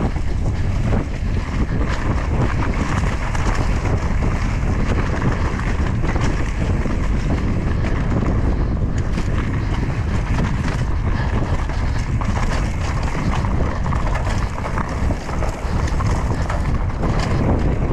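Wind buffeting the microphone as a mountain bike rides the trail, with steady tyre and drivetrain noise and frequent small knocks and clatter from the bike running over rough ground.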